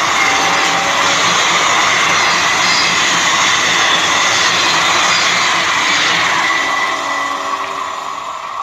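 Passenger coaches of an express train passing at speed: a loud, steady rush of wheels on rails that fades from about seven seconds in as the last coach draws away.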